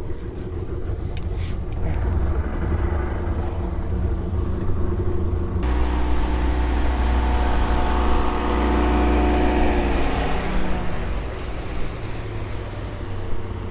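Boat's outboard motor speeding up as the boat gets under way, running steadily with a rushing hiss, then slowing, its pitch falling, near the end.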